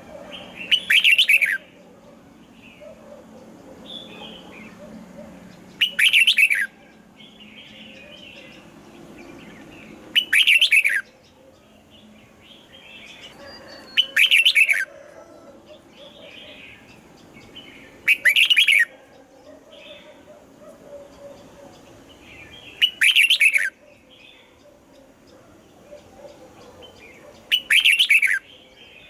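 Red-whiskered bulbul song: seven loud, short phrases of quick falling whistled notes, repeated at an even pace about every four and a half seconds, with softer chirping between them.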